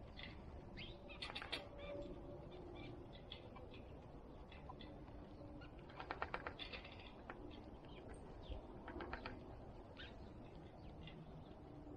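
Small backyard birds chirping now and then around a feeder, with three quick runs of rapid fluttering or tapping, the loudest about halfway through.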